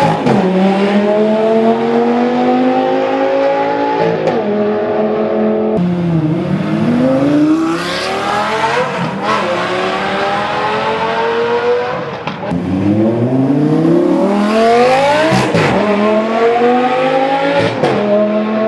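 Lamborghini engines accelerating hard, the pitch climbing through each gear and dropping sharply at each upshift, about five times; a little after the first third the engine note falls away and then climbs again.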